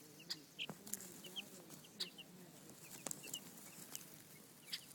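Two-week-old baby chicks peeping: short, high chirps scattered throughout, with a few light clicks among them.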